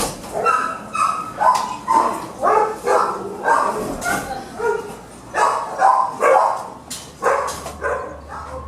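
Shelter dogs barking in their kennels: a steady string of short barks, one or two a second.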